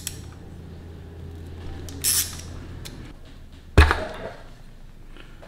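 Hands working the O-ring-sealed aluminium cam cover off a Honda Grom's cylinder head. There is a short scrape about two seconds in and a sharp metal knock a little before four seconds in as the cover comes away.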